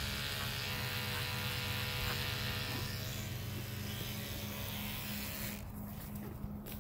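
Electric livestock clippers running with a steady buzz.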